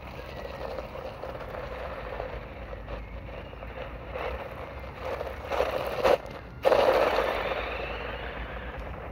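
Radio-controlled car driving over loose gravel, its tyres scraping and crunching through the stones. Two louder bursts of gravel a little past the middle, the second the loudest, then the sound slowly fades as the car moves away.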